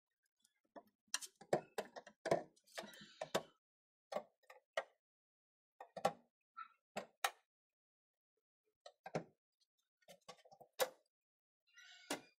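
Sharp metallic clicks and knocks from the clasps and steel door panels of a converted oil drum cabinet being unfastened and handled, in a string of separate snaps with a brief scrape about three seconds in.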